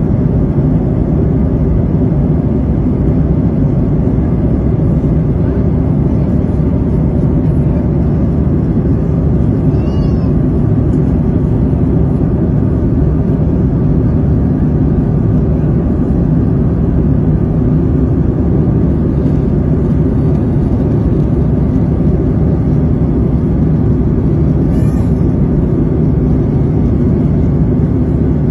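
Steady low drone of an airliner cabin in flight, the engine and airflow noise of the plane. Two brief faint high chirps rise over it, about ten seconds in and again near the end.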